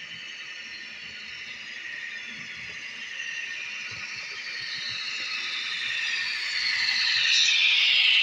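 Piko HO-scale Stadler GTW model train running along the track, its motor whine growing steadily louder as it approaches and passes close by near the end.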